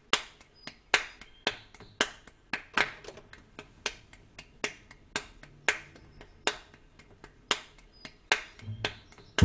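Finger snapping in a steady rhythm, a loud snap about once a second with softer ones between, counting in a piece. A plucked double bass comes in at the very end.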